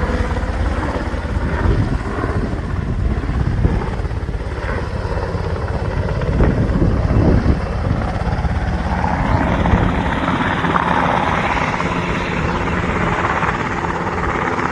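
Sikorsky UH-60 Black Hawk military helicopter flying, with the rotor beat and its twin turboshaft engines heard steadily. About nine seconds in, the deep rotor sound eases off and a higher rushing engine sound takes over.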